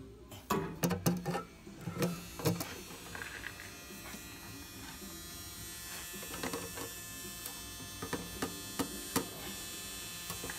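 Metal clinks and knocks as a starter motor is pushed and turned into place against the transmission bellhousing for a test fit, most of them in the first few seconds, over a steady electrical buzz.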